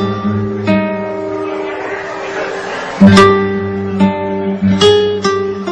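Guitar music: plucked and strummed chords ringing on, with the loudest chord struck about three seconds in.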